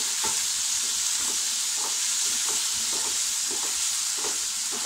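Chopped tomatoes and onions sizzling as they sauté in a non-stick kadai, a wooden spatula stirring and scraping through them about twice a second over a steady frying hiss.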